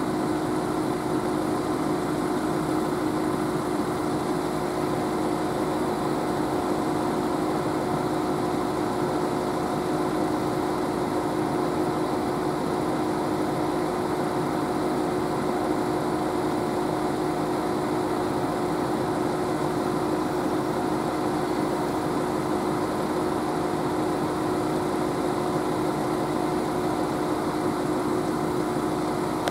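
Level crossing warning bell sounding without a break while the barriers are down and the train is awaited, a steady ringing tone that does not change.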